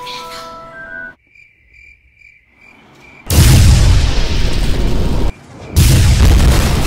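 Two loud blast sound effects, each about two seconds long, for a magic spell's beam and explosion. They follow a stretch of cricket-chirp effect; music stops about a second in.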